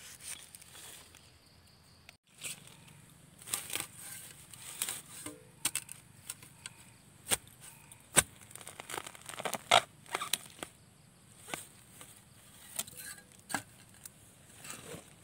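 A young bamboo shoot being chopped out at its base with a blade: about a dozen irregular sharp chops, with crackling and rustling of dry bamboo litter.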